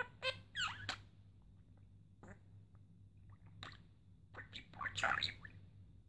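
Budgerigar chattering: a quick string of short warbling calls in the first second, a few scattered clicks, then a longer burst of chatter from about four and a half to five and a half seconds in.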